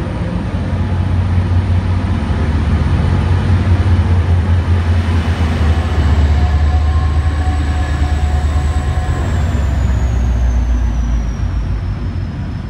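MBTA commuter train departing, its cars rolling by with the diesel locomotive pushing at the rear: a loud, steady low engine drone with wheel and rail noise. The drone drops lower about six seconds in and eases off near the end as the locomotive passes, while a thin high whine slides down in pitch.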